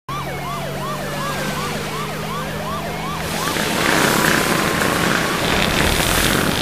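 Police siren yelping, each cry rising and falling about three times a second, over a steady car engine hum. From about three seconds in the siren gives way to a louder rush of noise.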